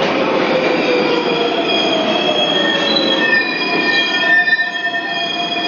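New York City subway train running, its steel wheels squealing on the rails: several steady high-pitched tones over a rumbling noise, the squeal standing out more clearly about halfway through.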